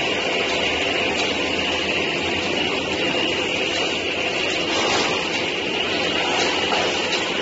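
Plastic sheet extrusion line running: a steady mechanical drone with a constant high whine.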